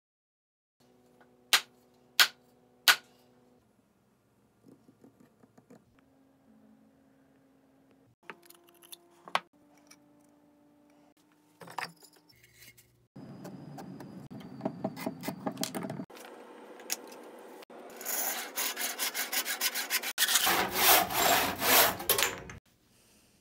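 A hand saw cutting a small block of cherry wood, in quick back-and-forth strokes that grow louder in the last few seconds. Before it come three sharp knocks and a few light wooden clicks.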